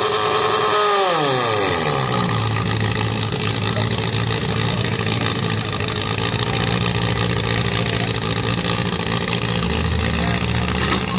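Demolition derby compact car engines running. One is revved high at first and drops back about two seconds in, then a steady engine drone continues.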